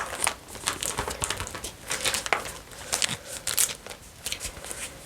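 Irregular crinkling and rustling of plastic binder pages holding Pokémon cards as they are handled and turned.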